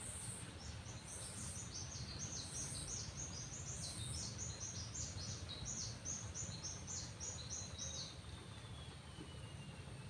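A small bird singing a long run of quick, high chirping notes that shift in pitch, lasting about seven seconds and stopping near the end. A higher call repeats about every second and a half in the first few seconds, over a steady low rumble.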